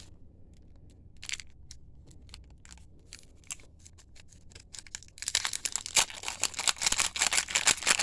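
Trading cards handled with a few faint clicks, then about five seconds in a loud, dense crinkling and tearing of a card pack's wrapper being handled and opened.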